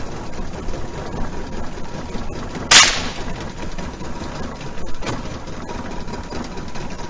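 A single shotgun shot about three seconds in, followed about two seconds later by a fainter knock, over a steady low rumble.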